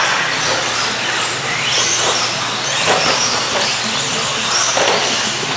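A pack of electric RC stadium trucks with 13.5-turn brushless motors racing on dirt: high motor whines rising and falling with the throttle over a steady hiss of tyres, with a few short knocks.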